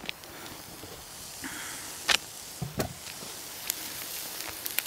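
Plastic packaging of ground beef being handled and torn open, a few short crinkles and clicks, over a steady faint hiss of hot oil in a skillet.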